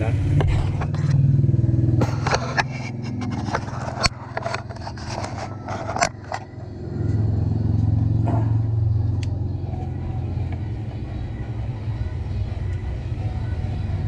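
Clicks, knocks and scraping of the camera and gear being handled and set up again, over a steady low hum that grows louder about halfway through.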